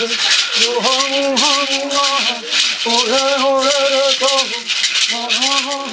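Gourd rattles (mbaraka) shaken in a steady, rapid rhythm while a voice chants a Guaraní-Kaiowá ritual song in repeated phrases of about a second and a half, with short breaks between them.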